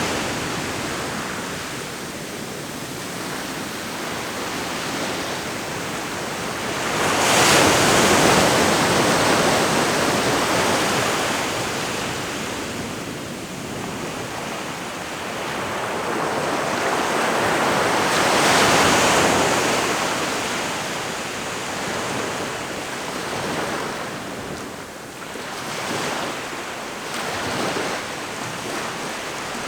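Ocean waves breaking and washing on the shore in a steady wash of surf. Two bigger waves crash about seven and eighteen seconds in, with smaller ones near the end.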